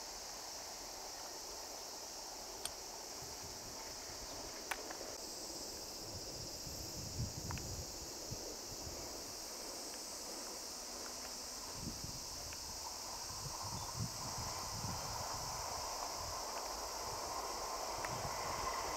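Steady high-pitched chirring of insects in the surrounding fields, with a few sharp clicks and some low rumbles. A faint hum grows slightly louder near the end.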